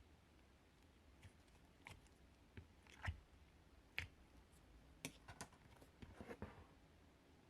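Slime being handled and squished: faint, irregular small clicks and pops, with a quick run of them about six seconds in.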